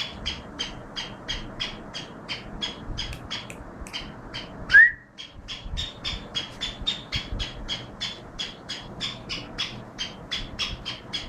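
Black francolin calling from a cage: short, sharp calls repeated evenly about three to four times a second. A single louder rising squeak comes about five seconds in.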